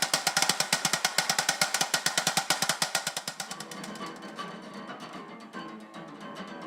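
Berimbau de bacia, a one-string musical bow with an old basin as its resonator, struck in a fast, even run of strikes to play a samba rhythm; loud for about three seconds, then softer, with the string's ringing pitch more audible.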